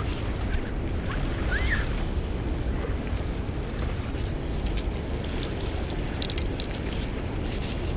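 Steady wind rumble on the microphone over the wash of small waves on the shore, with a few faint clicks in the second half.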